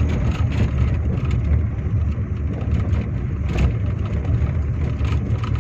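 Car driving on a rough, narrow road, heard from inside the cabin: a steady low rumble of engine and tyres, with short bumps and rattles now and then.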